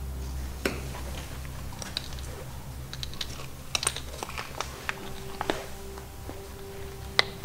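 Scattered light clicks and taps at irregular intervals, busiest in the middle, with two sharper clicks near the start and the end, over a low steady drone.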